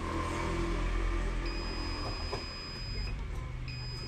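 A long steady high-pitched electronic beep lasting about a second and a half, then a second one starting near the end, over a low steady hum.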